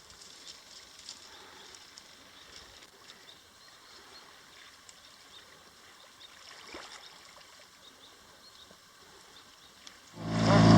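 Faint outdoor background with a soft trickle of water and a few small clicks. Near the end a small two-stroke outboard motor comes in suddenly and loud, running at a steady speed.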